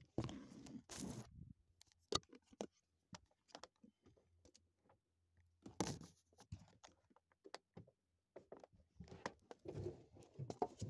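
Phone being handled close to its microphone: fingers rubbing and knocking on the case, giving irregular clicks and short rustling bursts.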